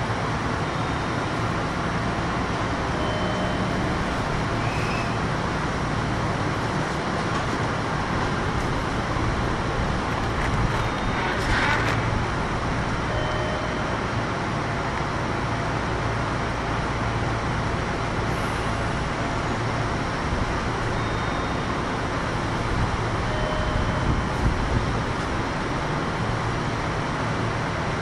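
Kintetsu 1021 series electric train running, heard from inside the car: a steady rumble of wheels and motors with a low hum, and a brief louder rushing sound just before halfway.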